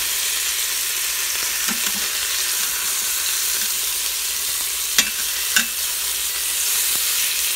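Boneless chicken thighs sizzling in hot oil in an Instant Pot's stainless steel inner pot on the sauté setting: a steady frying hiss. A few sharp clicks of metal tongs against the meat and pot come as the pieces are turned, two of them close together about five seconds in.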